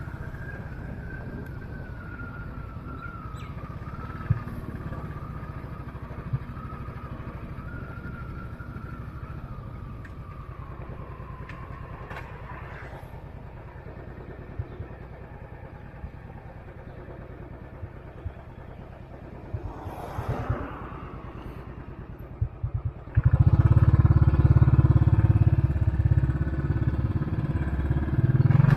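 Royal Enfield Classic 500's single-cylinder engine running while the bike is ridden, with a few short knocks along the way. About three quarters of the way through, the sound suddenly gets much louder and stays loud to the end.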